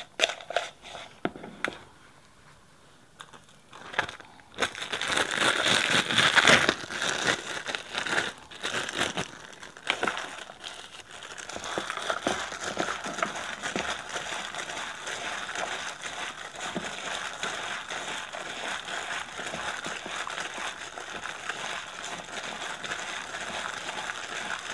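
A plastic bag worn over a hand crinkles and rustles steadily as it tosses and kneads chopped salted daikon radish with sugar, ginger and chilli in a plastic bowl. In the first second or so there are a few spoon clicks against the bowl.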